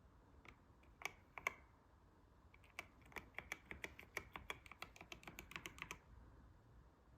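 Faint typing on a YUNZII C68 mechanical keyboard with milk switches: two key clicks about a second in, then a quick run of keystrokes, about five a second, lasting some three seconds.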